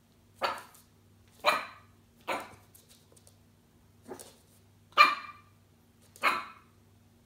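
Maltese puppy barking at a cat: six short, high yaps about a second apart, the fourth one weaker.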